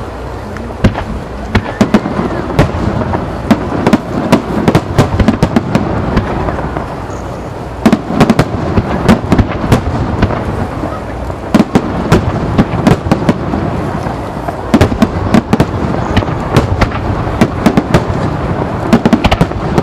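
Starmine fireworks barrage: shells bursting in rapid succession, a dense run of sharp cracks over a continuous rumble, thickening into heavier clusters twice.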